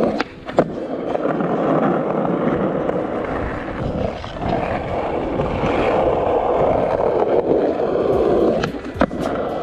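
Skateboard wheels rolling steadily over rough asphalt, with sharp clacks from the board about half a second in and twice more near the end.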